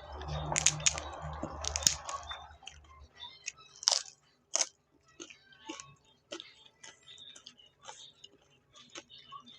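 Close-miked eating sounds: chewing, smacking and wet mouth clicks. A busier stretch comes first, then two sharp cracks about four seconds in, followed by lighter scattered clicks.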